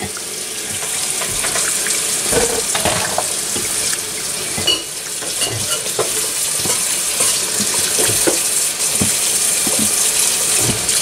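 A hand kneading raw chicken pieces in a sticky honey marinade in a glass bowl: continuous wet squelching with many small irregular clicks.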